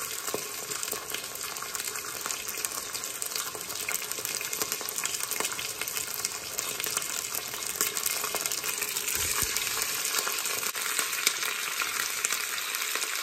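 Lamb neck pieces searing in hot olive oil in a pot: a steady sizzle and crackle of frying, growing a little louder as more pieces go in.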